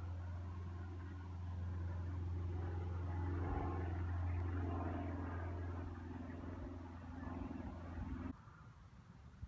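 A steady, low engine-like hum that swells a little midway, then cuts off abruptly just over eight seconds in.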